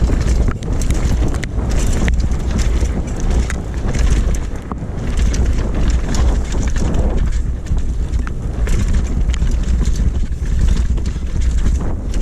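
Heavy wind buffeting the microphone, with irregular rattles and knocks throughout, as of a mountain bike being ridden over rough ground.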